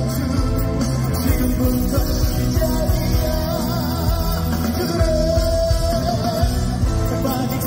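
Live concert music: a male voice singing a Korean trot song over a loud band with heavy bass. A long, wavering held note comes about five seconds in.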